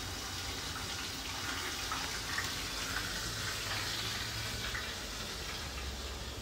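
A steady, even hiss in the background, with a few faint ticks over it.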